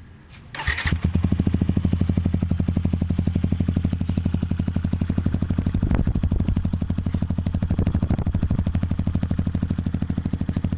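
Yamaha WR155R's 155 cc single-cylinder engine, breathing through a Norifumi aftermarket exhaust, starts about half a second in and settles into a steady idle with an even exhaust pulse.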